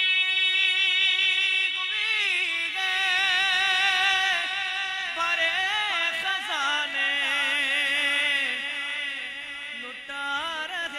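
A man singing an Urdu naat into a microphone, drawing out long ornamented notes that waver in pitch, over a steady low held note underneath.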